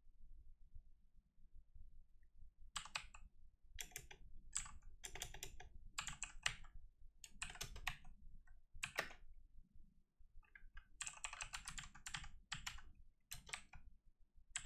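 Typing on a computer keyboard: short runs of keystrokes with pauses between them, starting about three seconds in.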